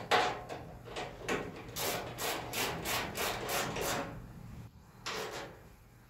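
Ratchet wrench snugging a 5/16 stainless bolt on a tailgate latch: a sharp burst right at the start, then a run of short rasping ratchet strokes, about three a second, from about two to four seconds in, and one more just after five seconds.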